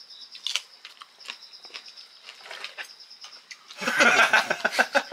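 Small crunching clicks of chewing into a raw cucumber chili pepper, over a faint steady chirping like crickets. About four seconds in, a much louder, dense burst of rustling noise breaks in.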